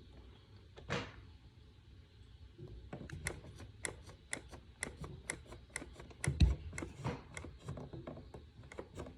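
Bass buttons and pallet mechanism of a 1928 Wurlitzer 120-bass accordion clicking as the buttons are pressed in an uneven run of about four clicks a second. No bass reeds are fitted, so no notes sound. There is a dull thump about a second in and another near the middle.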